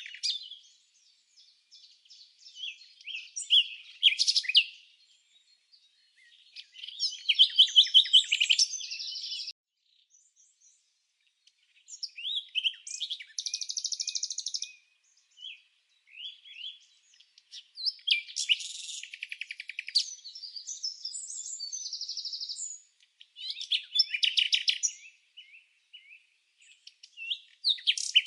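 Songbird song: phrases of rapid high chirps, trills and quick gliding notes, each lasting a second or three and separated by brief pauses.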